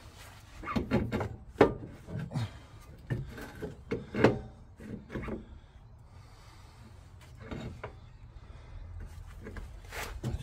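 Knocks, clunks and short scrapes of a front steering knuckle and hub being manoeuvred onto the ball joint of a new lower control arm. The loudest knocks come in the first half, then quieter handling, with a sharp click near the end.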